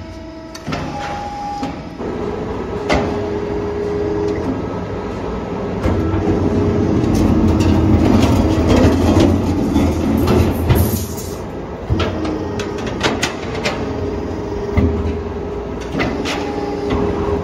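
A 4 mm hydraulic guillotine shear running: the hydraulic pump hums steadily while the blade beam moves through its stroke, getting louder for several seconds in the middle. Sharp metallic clicks and clanks come several times along the way.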